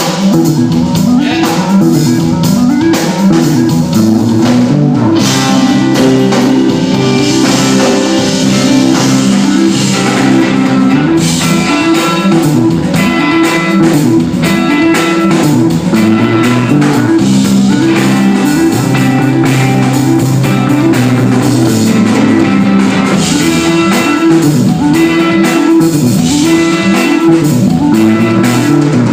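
Live band playing through a venue PA during a sound check: guitar with bass over a drum kit, loud and steady throughout.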